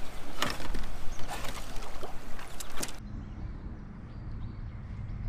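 Dry twigs and branches of a fallen tree cracking and scraping against a kayak and the angler as it pushes into them, in a string of sharp snaps. After about three seconds this gives way to a quieter steady low hum.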